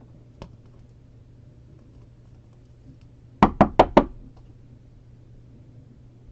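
Four quick, sharp knocks in a row, about five a second, starting roughly three and a half seconds in, with a single faint click shortly before.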